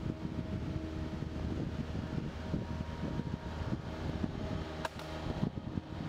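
Compact loader's engine running steadily as it hauls a treetop along a highline rope, with an uneven low rumble over it and one sharp click about five seconds in.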